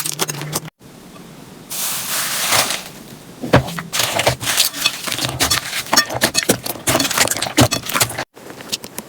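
Slime being pressed and poked by hand, giving a run of sharp clicks and crackling pops. The sound breaks off briefly twice, about a second in and near the end.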